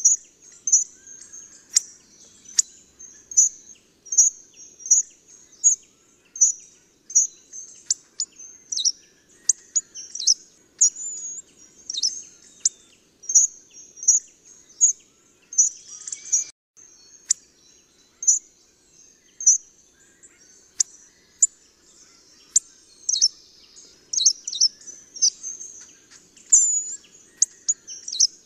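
Hawfinch calls: short, sharp, high 'tzik' notes repeated about twice a second, at times overlapping.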